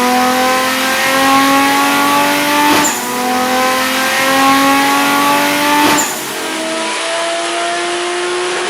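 Turbocharged Toyota 1JZ inline-six in a Lexus SC300 making a pull on a chassis dyno, its revs climbing steadily for about seven seconds before it backs off near the end. Two sharp cracks break through the engine sound, about three seconds in and again about six seconds in.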